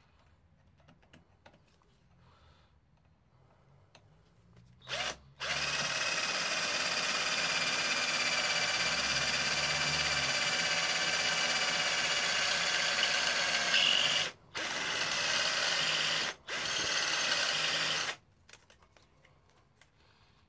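Cordless battery drill drilling through a hole: a short blip, then a steady whine under load for about nine seconds, stopped twice briefly and restarted for two shorter runs.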